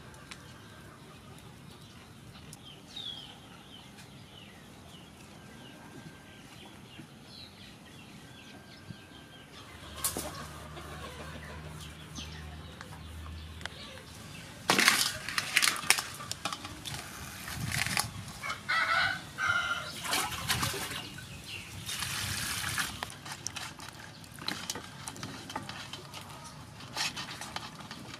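Chickens clucking faintly, then from about halfway irregular splashing and sloshing of water in a metal basin as hands wash mantis shrimp.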